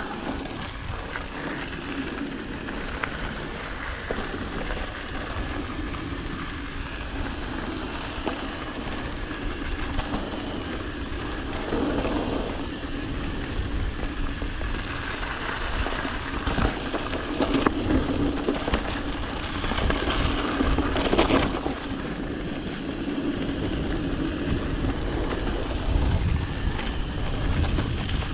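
Mountain bike rolling along a dirt singletrack: steady tyre noise on packed dirt and pine needles over a low rumble, with a few sharp rattles and knocks from the bike over bumps in the middle of the ride.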